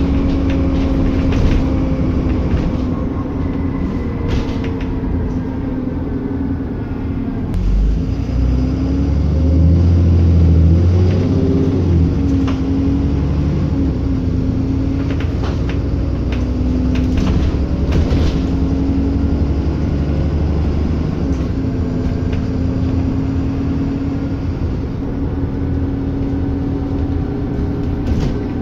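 Double-decker bus engine and drivetrain heard from the upper deck while under way: a steady low drone with a humming engine tone, scattered rattles and clicks from the bodywork. About eight seconds in the drone grows louder with a rising whine for a few seconds, then settles back.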